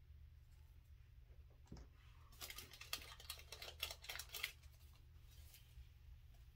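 Faint handling of nail-kit packaging: a light knock, then about two seconds of quick crinkling, rustling clicks, and one short rustle a second later.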